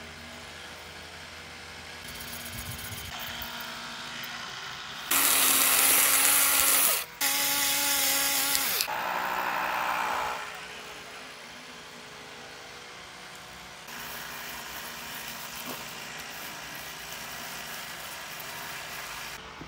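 A small motor whirring loudly for about four seconds, cut off briefly partway through, among quieter stretches of noise.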